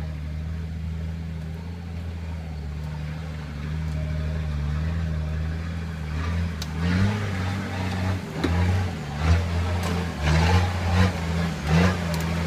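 Nissan Patrol 4x4's engine running at low revs as it crawls up a rocky gully, with short rises in revs from about halfway in, along with knocks and scrapes of tyres and underbody on stones.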